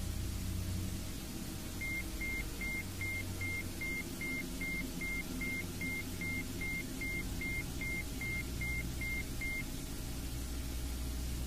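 Electronic meditation tones: a steady low drone that slowly swells and fades. Over it a run of about twenty short high beeps at one pitch, roughly two and a half a second, starts about two seconds in and stops near the end.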